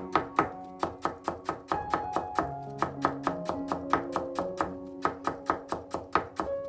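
A kitchen knife cutting a vegetable into fine julienne on a wooden cutting board, about four quick strokes a second, over background music with plucked guitar-like notes.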